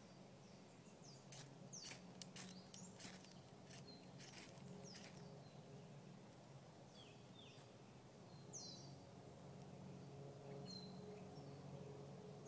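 Faint bush ambience: birds chirping in short falling notes now and then, with a run of light clicks and crackles in the first few seconds.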